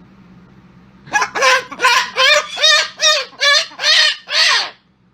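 A bird squawking in a quick run of about nine loud, evenly spaced calls, each rising and falling in pitch.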